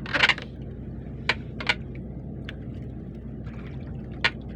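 Small boat's engine running steadily, with water splashing a few times: one longer splash right at the start, then short sharp splashes or knocks.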